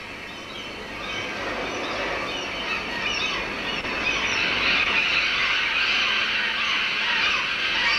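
A large flock of birds calling all at once, a dense high-pitched squawking chatter that builds and grows louder from about three seconds in as the flock takes to the air.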